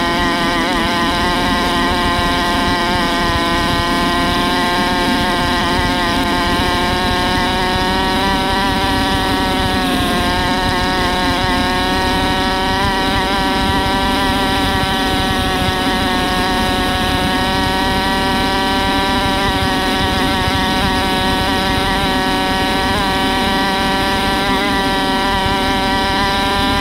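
Small 125cc four-stroke dirt bike engine running at a fairly steady throttle, its pitch rising and dipping only slightly, over a rough low rumble.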